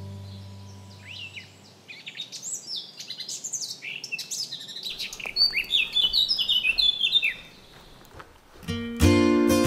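Songbirds chirping and singing in quick, overlapping notes that rise and fall. A music track fades out at the start, and strummed acoustic guitar music comes in near the end.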